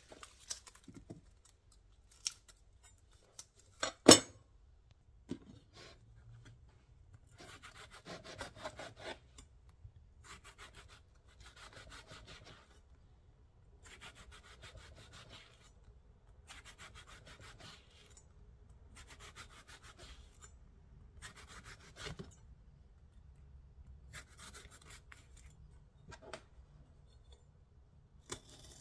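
Chef's knife and hands working a white onion on a white cutting board: peeling and slow slicing, heard as a long series of soft scraping, rustling strokes about a second each. One sharp knock about four seconds in, the knife hitting the board.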